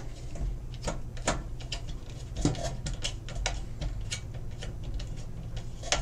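Light, irregular clicks and ticks as a wire is seated and a screw terminal is tightened down on a DSC PowerSeries alarm panel's terminal strip, over a faint steady low hum.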